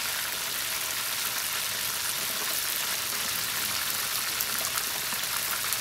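Mojarra fish frying in hot oil in a pan: a steady sizzle with faint crackling pops.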